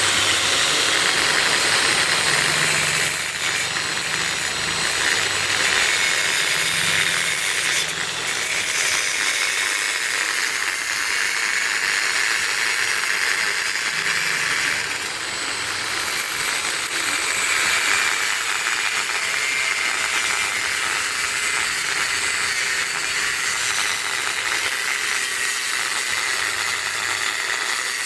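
A power tool working on a motorcycle silencer, a steady continuous noise with no pauses.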